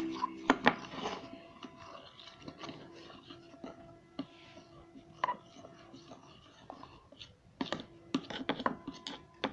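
Gel hand soap and salt being stirred together into slime: irregular taps and short scrapes of the stirring utensil against its container, loudest in the first second.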